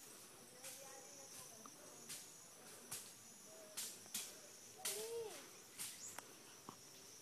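Footsteps on cut grass and dry leaves, a step or rustle about every half second to second, over a steady high-pitched buzz of insects. A few short calls sound about one, four and five seconds in.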